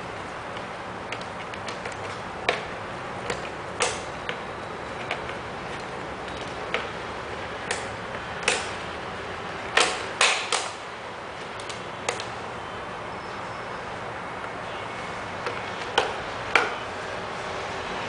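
Irregular plastic clicks and taps as hands fit and remove a mop cloth holder on the underside of a robot vacuum, with a quick cluster of the loudest clicks about ten seconds in and another pair near the end, over a steady hiss.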